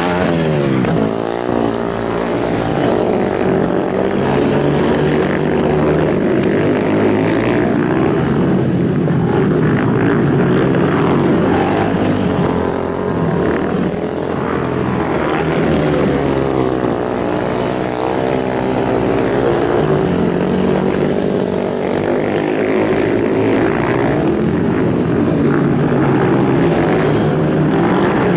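Several superbike engines running hard at high revs without a break, their pitches sweeping up and down as they accelerate, shift and pass, with a marked falling sweep about a second in and again around the middle.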